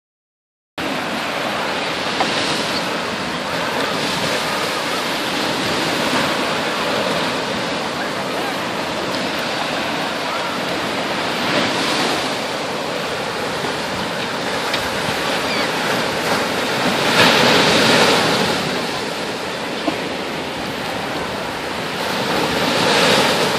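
Ocean surf breaking and washing onto a beach: a steady rushing noise that swells and eases several times, loudest about two-thirds of the way through.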